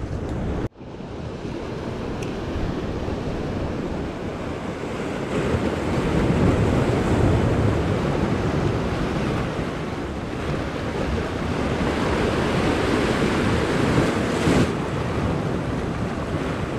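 Ocean surf washing and foaming against the jetty rocks, with wind buffeting the microphone.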